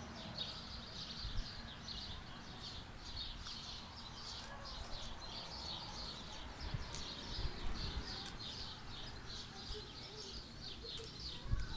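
Birds chirping steadily in the background, many quick high chirps, over low wind and handling rumble on the microphone with a few soft bumps.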